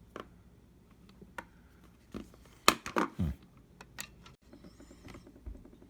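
Scattered light clicks and taps of a small cordless precision screwdriver and its plastic case and bits being handled, about half a dozen separate clicks with no motor running.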